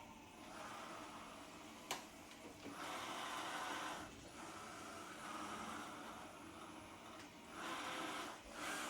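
Small motor whirring in uneven spells that rise and fall, with a sharp click about two seconds in.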